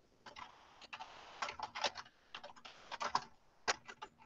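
Computer keyboard being typed on: an uneven run of key clicks, some in quick clusters.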